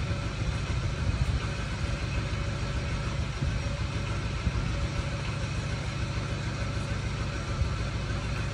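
Steady low rumble with a faint hum over it, unchanging throughout: constant background noise.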